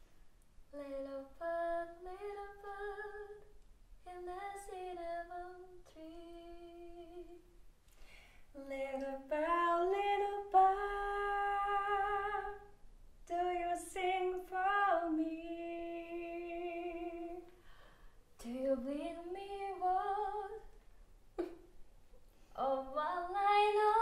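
A woman singing a cappella with no accompaniment, in short phrases with held notes and gaps between them.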